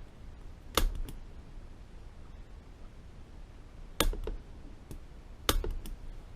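Hammer striking a punch to mark a transmission shift fork: three sharp metal strikes about a second, three seconds and four and a half seconds in, each followed by one or two lighter taps.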